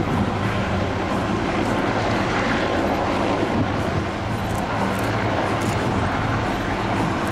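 Several UH-1J, AH-1S and OH-6 military helicopters flying in formation, their rotors and turbine engines making a steady sound, mixed with strong wind noise on the microphone.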